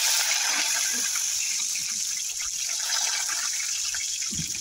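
Curry leaves sizzling in hot oil with cumin and mustard seeds, a loud hiss that slowly eases off.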